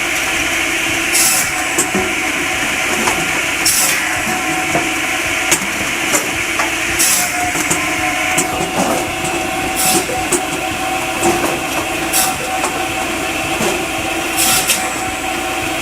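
Firewood processor running: a steady machine drone with a held tone, broken every two to three seconds by short bursts of hiss and knocks as wood is cut and split.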